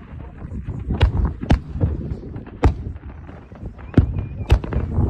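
Aerial fireworks going off in quick succession: about six or seven sharp bangs at uneven intervals over a continuous low rumble of other bursts.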